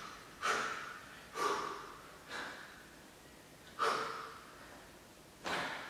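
A man breathing out hard with each press-up: five short, forceful exhalations, unevenly spaced, each fading quickly.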